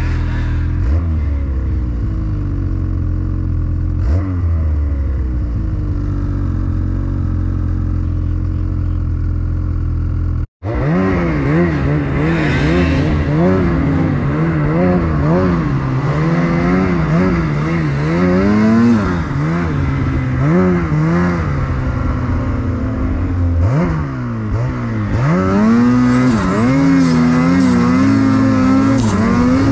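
Snowmobile engine running steadily, then, after a brief break about ten seconds in, revving up and down over and over as the sled is ridden.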